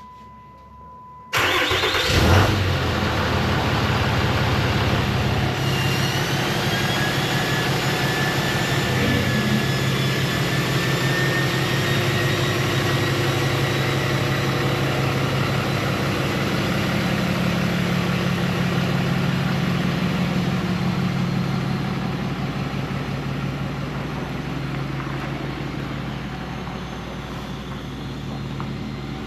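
Dodge Ram 2500's Cummins turbo-diesel starting up about a second in and running, with a high whine that rises slowly. The truck then pulls away, growing fainter near the end.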